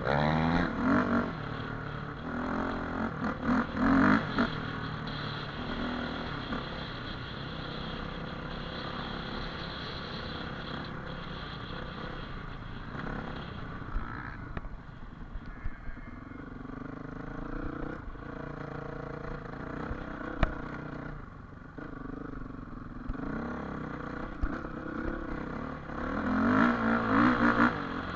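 Dirt bike engine revving hard in bursts near the start and again near the end, running lower and steadier in between, with a few sharp knocks in the middle.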